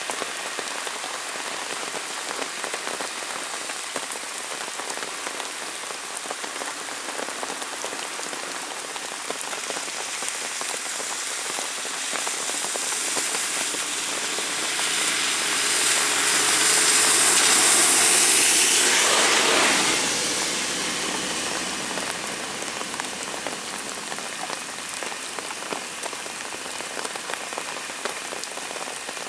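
Steady heavy rain falling on a road and foliage. Midway through, a minibus passes close on the wet road, and the hiss of its tyres on the water swells to the loudest point and fades away again over several seconds.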